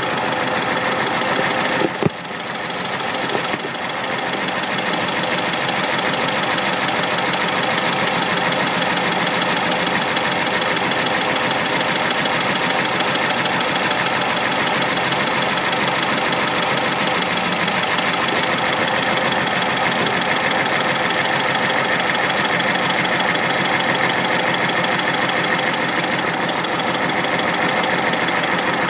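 1965 Porsche 912's air-cooled flat-four engine idling steadily, heard up close at the crankshaft pulley. One sharp click about two seconds in.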